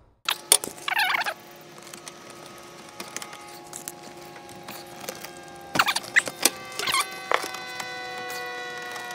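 Hand tools working the propane line fitting on an RV refrigerator as it is disconnected and capped: sharp metallic clicks and knocks with short wavering scrapes of metal on metal, about a second in and again around six to seven seconds, over a faint steady hum of several tones.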